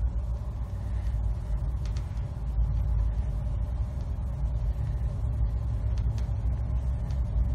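Domestic cat purring steadily as it is stroked, a low continuous rumble: a happy purr.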